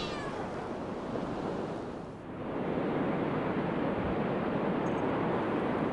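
Steady rushing ambience of wind and sea. It dips briefly about two seconds in, then comes back a little louder.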